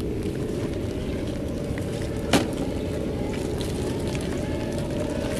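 Steady low rushing of a rocky creek, with one sharp click a little over two seconds in. A faint whine joins in the second half as the Traxxas TRX-4 scale crawler drives up over the rocks.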